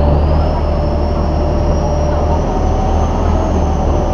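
River passenger boat's engine running hard under way, a loud low drone with a whine that climbs slightly over the first few seconds, over the rush of water churned up by the hull.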